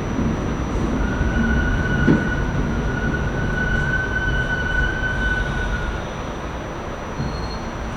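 New York City subway train running with a steady low rumble. A high, steady wheel squeal sets in about a second in and fades out about two seconds before the end.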